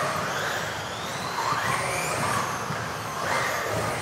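Electric off-road RC cars racing round an indoor track: the high whine of their motors rises in pitch twice, about a second and a half in and again near the end, over a steady noisy hiss.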